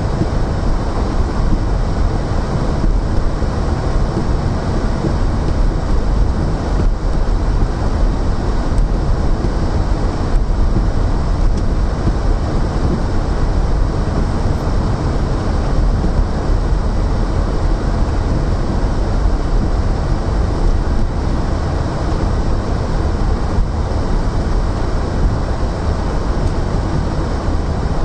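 Steady low rumble of a car driving on a snow-covered road, heard from inside the cabin: engine and tyre noise with no sudden events.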